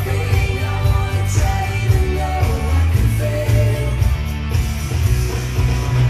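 Nighttime castle show soundtrack playing loudly over outdoor park speakers: music with singing and heavy bass.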